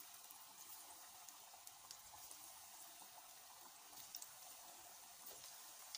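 Cornflour-coated potato finger fries frying in hot oil: a faint, steady sizzle with scattered small crackles.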